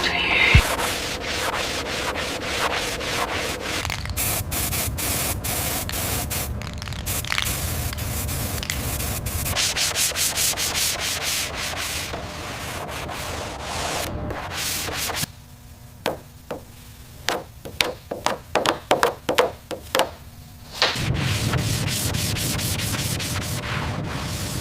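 Sanding, a continuous rasping scrape. Past the middle it breaks into a run of separate short strokes, roughly two a second, for about five seconds, then goes back to steady sanding.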